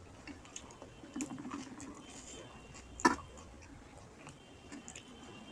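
A person chewing a mouthful of rice and fish curry, with soft wet squishing and small clicks, and one sharp click about three seconds in that is the loudest sound.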